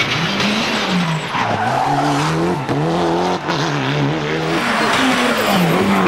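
Mitsubishi Lancer Evolution rally car's turbocharged 2.0-litre four-cylinder engine driven hard. Its pitch climbs and drops again and again as the driver shifts gear and lifts off through the corners, with tyre squeal about a second and a half in.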